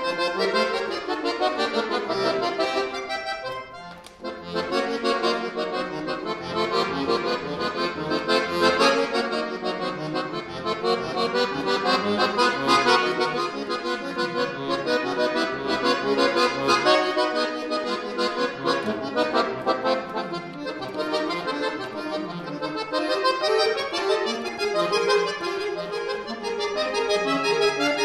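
Chromatic button accordion playing a solo piece in quick runs of notes, with a brief break about four seconds in before the playing resumes.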